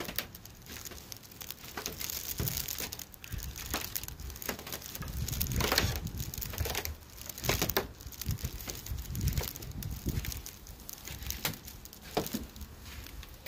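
Slow footsteps climbing ice-covered outdoor stairs: uneven crunches and knocks on the treads, with the rustle and bump of a phone being handled.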